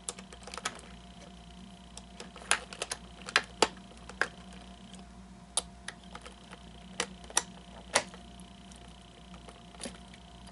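Irregular sharp clicks and taps of a small flathead screwdriver picking at the pins of a plastic animatronic hip gear, trying to pry out small black pieces. The screwdriver is not the right size to catch them.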